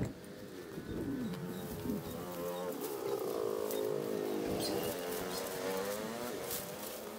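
A small engine running, its pitch rising and falling as the speed changes.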